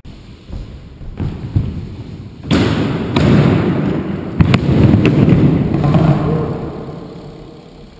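BMX bike rolling fast over wooden skatepark ramps, heard from a camera riding along: a heavy tyre-and-wind rumble that swells about two and a half seconds in, with a few sharp knocks of wheels hitting the wood, then fades near the end.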